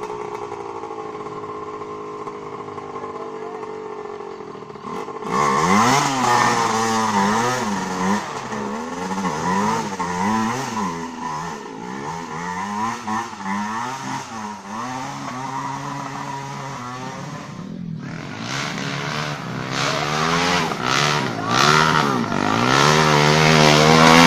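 Dirt bike engine revving up and down again and again as it claws up a muddy slope. The engine note rises and falls in quick surges, and the sound changes abruptly twice, about five seconds in and near eighteen seconds.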